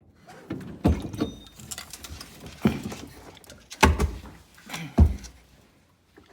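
A run of hard knocks and clunks with lighter clatter between them, four loud strikes about a second apart, as of tools and engine parts being handled during the engine's teardown.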